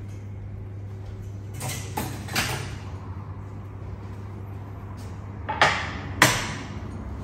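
A few light knocks and clatters at a kitchen cabinet, then two sharp knocks as a wooden cutting board is set down on a glass tabletop and a knife laid on it, over a steady low hum.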